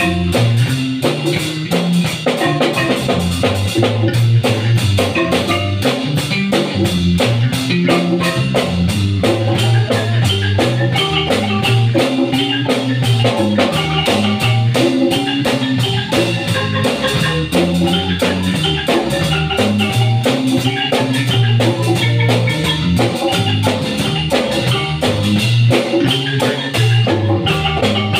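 Live marimba band playing: two players on a marimba, with congas and a drum kit keeping a steady beat.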